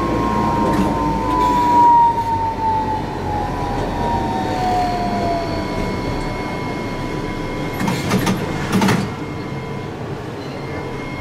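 Toyohashi Railroad T1000 low-floor tram running on street track, heard from the cab. Its motor whine falls steadily in pitch over the first six seconds as the tram slows, over a steady rumble of wheels on rail. A few sharp knocks come about eight and nine seconds in.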